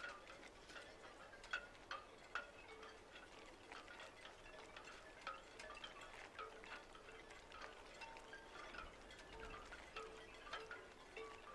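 Faint chiming: scattered short, bell-like ringing tones and light ticks at irregular intervals.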